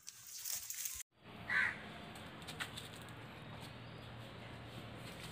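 A single short, loud animal call about a second and a half in, over steady background hiss and a low hum, with a few faint ticks and rustles.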